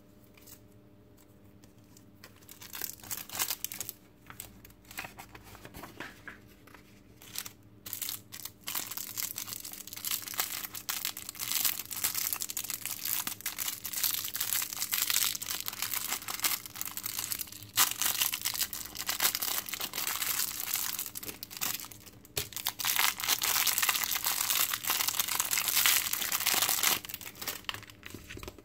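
Thin clear plastic parts bag crinkling and rustling as it is handled and opened to get a small part out. Scattered light handling clicks at first, then near-continuous crinkling from about a third of the way in, breaking off briefly twice.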